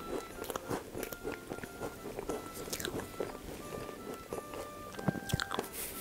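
Close-miked chewing and soft mouth sounds of someone eating whipped-cream cake, over background Christmas carol music with held, bell-like notes. Near the end a fork clicks against the plate as it cuts into the cake.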